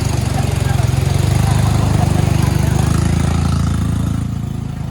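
Heavy diesel engine running close by, growing louder over the first second or so, holding, then easing back about four seconds in.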